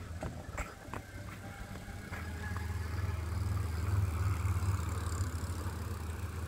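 Super73 electric bike towing a loaded boat trailer rolling past: a low hum and rushing tyre noise that grow louder as it approaches, loudest about four seconds in.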